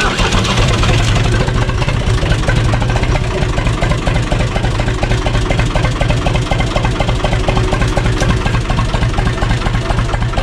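UTB 445 tractor's diesel engine running steadily just after a cold start that needed no preheating flame.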